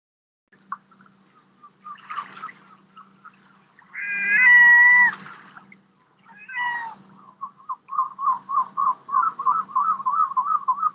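Gulls calling: a loud drawn-out wailing call about four seconds in, then a long run of short yelping notes at about four a second, the laughing series of a gull's long call. A steady low hum runs underneath.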